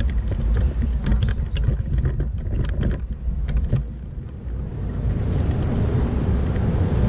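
Low rumble of a Miami Metromover people-mover car, with scattered clicks and knocks over the first few seconds as a manual wheelchair rolls aboard. The rumble eases about halfway through, then builds steadily as the car gets under way.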